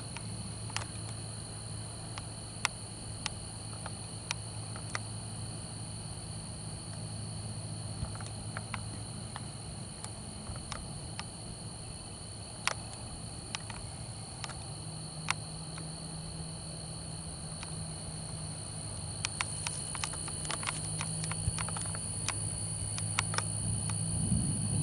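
Steady outdoor chorus of insects, a continuous high-pitched trill, over a low hum that grows somewhat louder in the second half, with scattered faint clicks.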